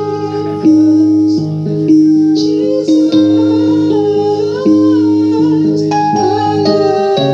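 Worship music: sustained chords with plucked guitar, possibly with a singing voice faintly wavering above.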